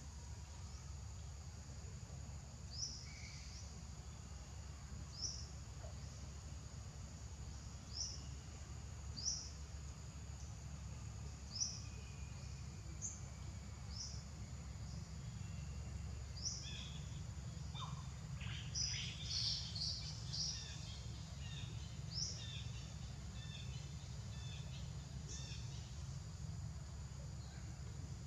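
Outdoor ambience: a bird giving short high chirps every second or two over a steady high insect drone, with a brief flurry of busier bird calls about two-thirds of the way through, all over a low steady rumble.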